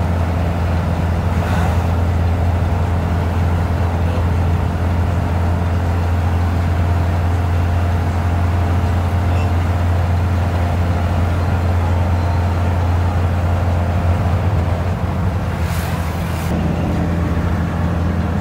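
Steady low engine drone and road noise inside the cabin of a passenger vehicle cruising on a highway, with a brief rush of noise about sixteen seconds in.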